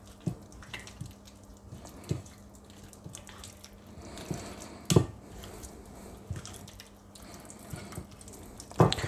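Wet squelching as a gloved hand rubs tandoori spice marinade into raw chicken drumsticks on a plate, with a few short sharp smacks; the loudest comes about halfway through.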